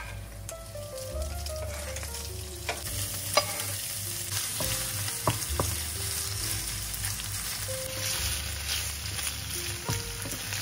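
Chunks of raw mackerel frying in hot olive oil in a nonstick pan, stirred with a wooden spatula. The sizzle picks up about three seconds in, and the spatula knocks sharply against the pan a few times.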